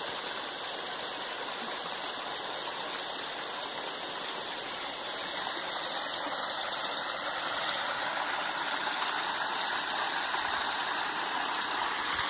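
Steady rush of running water: rainwater runoff streaming down a muddy channel into a small stream, growing a little louder over the second half.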